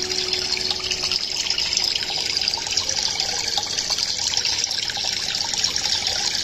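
Aquarium water trickling and splashing steadily, the filter's return flow breaking the surface of the tank.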